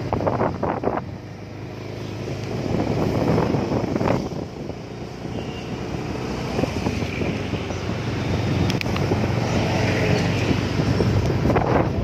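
Wind buffeting the microphone on a moving motorbike, over the bike's engine running steadily underneath.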